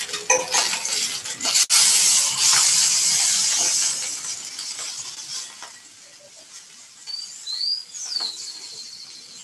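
Food sizzling in a frying pan, with clinks of a utensil against the pan; the sizzle is loudest about two seconds in and dies down after about four seconds. A few short high chirps near the end.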